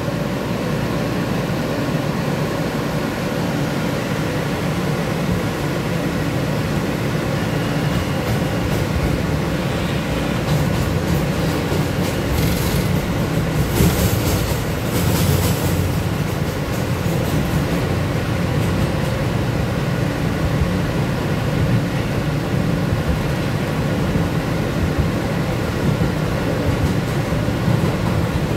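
R160 subway car running on the rails, heard from inside the car: a steady rumble of wheels and car body, with a few brief high clicks and hisses about halfway through.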